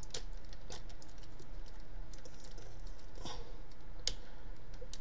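Irregular clicks and taps of a Transformers MP-10 Optimus Prime figure's parts being moved and snapped by hand during transformation, with a softer rubbing sound about three seconds in.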